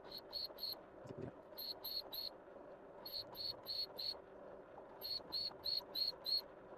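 An insect chirping in runs of three to six short, evenly spaced high chirps with pauses between the runs, over a faint steady hum.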